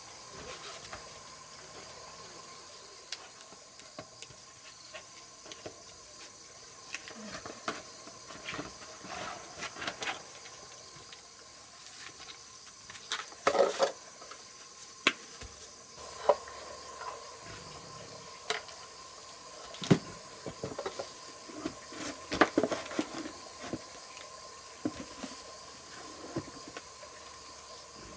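Scattered clicks, taps and rustles of battery clamp leads, wires and small parts being handled while a car battery is wired to a power inverter, with a louder scrape about halfway through. Under it runs a steady high chorus of insects.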